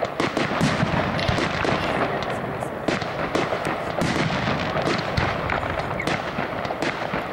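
Aerial fireworks display: shells bursting and stars crackling in a dense, unbroken run of overlapping bangs and crackles.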